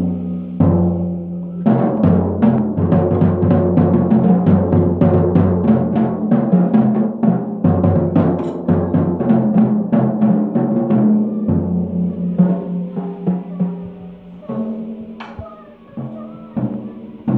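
Drum kit played by a child: a steady run of hits on the drums and cymbals, about four a second, that thins out and gets quieter in the last few seconds.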